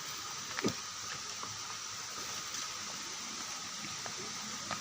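Steady rush of flowing water from a waterfall or stream, with one brief knock a little over half a second in.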